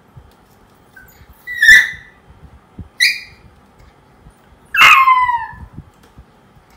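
Poodle puppy crying at being left alone: three high yelping cries, the last one longer and falling in pitch.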